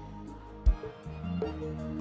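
Music without singing: held notes over a deep bass drum that hits once, a little under a second in.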